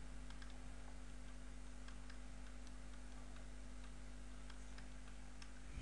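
Quiet room tone: a steady low electrical hum with faint, scattered ticks and clicks.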